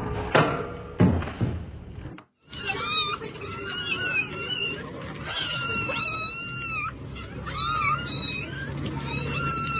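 A couple of thumps in the first two seconds, then kittens mewing: a string of high, wavering meows, one after another.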